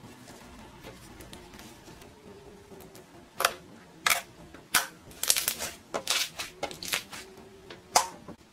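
Homemade slime being kneaded and stretched by hand, giving sharp clicking pops. They start about three seconds in, some single and some in quick clusters.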